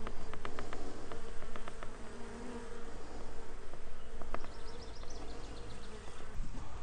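Honeybees buzzing around an open hive and a tray of cut comb, a steady hum, with a run of light clicks in the first couple of seconds.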